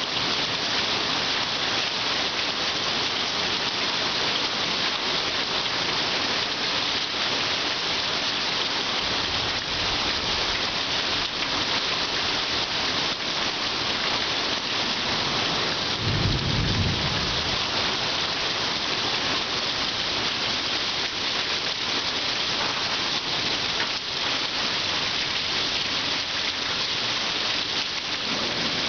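Heavy rain falling steadily, with one low rumble of thunder about halfway through.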